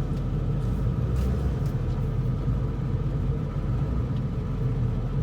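Straight-piped 2002 dually pickup's 7.3-litre diesel V8 running steadily at low revs while the truck is driven slowly, a loud, even rumble.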